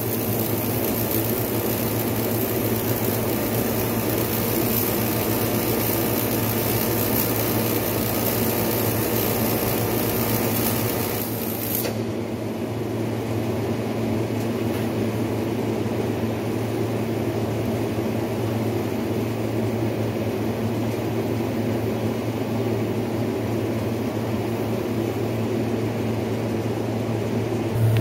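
Electric welding arc hissing and crackling on a cracked seam of an aluminum boat hull, cutting off abruptly about twelve seconds in. A steady low hum runs under it and on after the arc stops.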